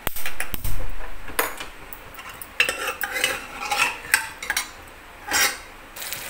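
A steel ladle stirs and scrapes chunks of mutton around an aluminium pressure cooker, frying off the cooking water after pressure-cooking. There are clinks and a knock of the ladle against the pot in the first second, then repeated scraping strokes, and sizzling builds near the end.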